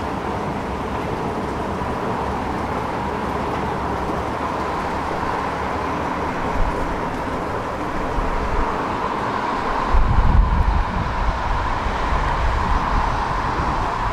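Steady hum of city street traffic, with a heavier low rumble coming in about ten seconds in.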